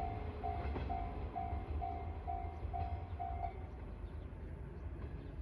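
Level-crossing electronic warning bell ringing about twice a second, stopping about three and a half seconds in, over a steady low rumble of a train.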